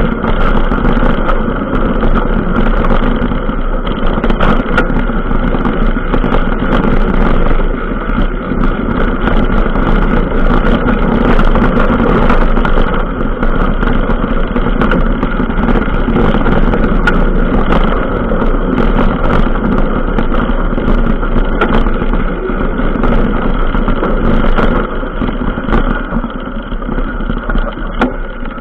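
Steady, loud running noise of a vehicle travelling along a rough dirt track, with scattered knocks and rattles from bumps.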